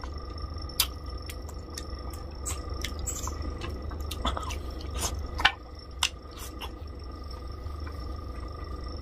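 Close-up eating sounds of rohu fish curry eaten by hand: wet chewing, lip smacks and sucking clicks at irregular moments, the sharpest about five and a half seconds in, over a steady low hum.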